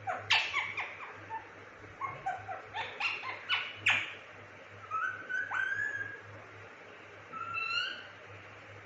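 Indian ringneck parrot calling: a few sharp, short screeches about half a second in and again around three to four seconds, then short whistles gliding in pitch near the middle and toward the end.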